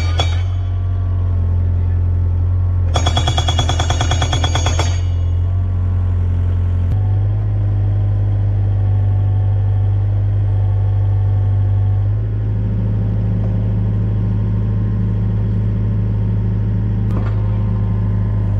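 An excavator-mounted hydraulic rock breaker hammering a timber fence post into the ground in a rapid, even run of blows for about two seconds, starting about three seconds in. Under it the excavator's diesel engine runs steadily, changing pitch about seven and again about twelve seconds in, with a single click near the end.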